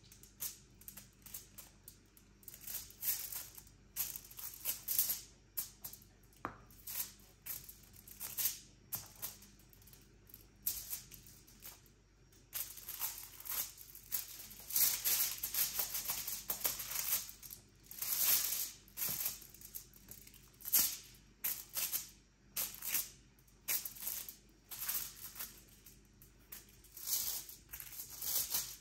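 Aluminium foil crinkling and crackling under bare feet as they step and shift weight on a sheet of it: irregular crisp crackles, about one or two a second, busier in stretches.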